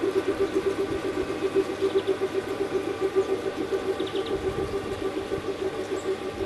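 Model V 200 diesel-hydraulic locomotive's ESU LokSound XL 4.0 sound decoder playing a steady, rapidly pulsing diesel engine idle through the model's speaker while the locomotive stands still. Faint bird chirps twice.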